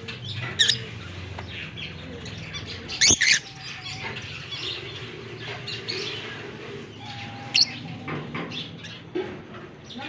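A flock of lovebirds chattering and chirping, with a few sharp, high-pitched calls standing out; the loudest is a pair about three seconds in. A steady low hum runs underneath.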